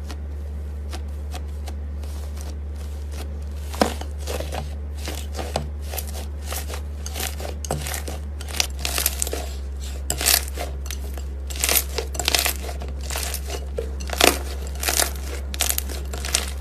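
Slime being squeezed and stretched by hand, giving irregular crackling and popping clicks that come more often after the first few seconds. A steady low hum runs underneath.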